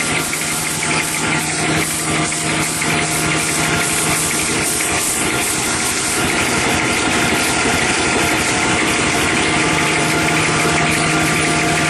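High-speed facial tissue paper log saw running steadily: a dense mechanical din with steady hum tones, a little louder from about six seconds in.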